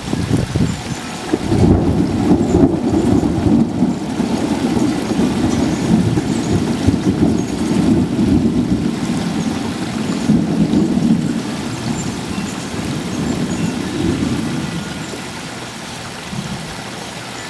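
Long rolling rumble of thunder from an approaching storm, swelling about a second in and fading away near the end.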